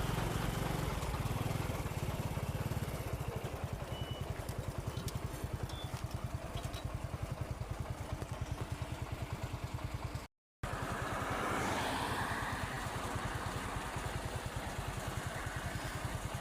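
Heavy vehicle's diesel engine running steadily, with a fast, even pulse. The sound drops out for a moment about ten seconds in.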